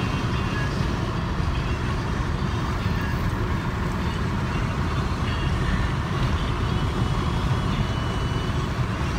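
Steady road and wind noise inside a moving car's cabin, loud and even, heaviest in the low rumble.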